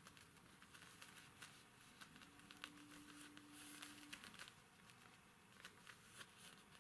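Near silence: faint rustling and scattered soft clicks, with a faint steady hum for about two seconds in the middle.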